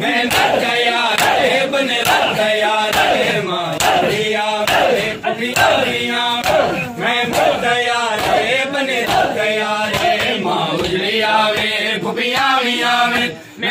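A crowd of men chanting a Muharram nauha in unison, with sharp slaps of hands striking bare chests (matam) in a steady rhythm of about two a second. The sound drops away briefly near the end.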